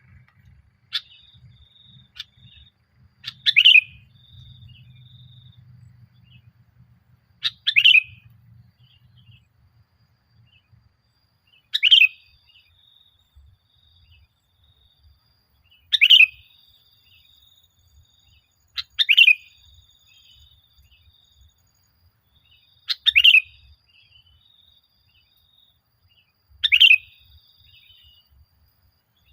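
Male sooty-headed bulbul (kutilang) in full song: loud short phrases about every four seconds, each a quick falling whistle, with softer high chatter in between.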